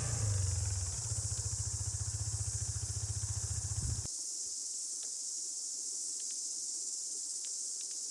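Quad bike engine running with a low, pulsing beat, which stops abruptly about four seconds in. A steady high insect chorus continues underneath.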